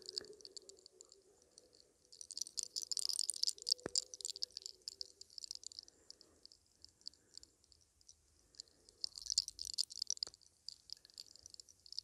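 Hair cracking: a lock of hair rolled tight between the fingers and pulled, giving a dense, fine crackle of tiny clicks. It comes in two heavier spells, one a couple of seconds in and one later, with a single sharper click about four seconds in.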